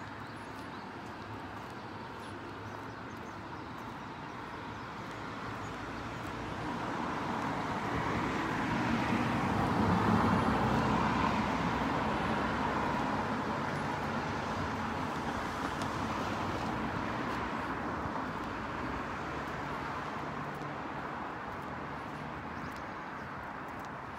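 Street traffic: a vehicle passes on the road, its engine and tyre noise swelling to a peak about ten seconds in and then slowly fading, over a steady low street hum.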